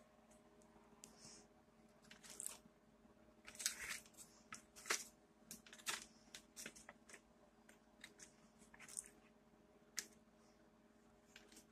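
Saucepan of rice, water and butter heating on a gas burner, giving faint irregular crackles and ticks over a steady low hum.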